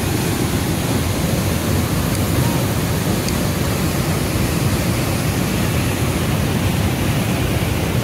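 Steady rush of a waterfall pouring into a rocky pool close by, an even noise with no break.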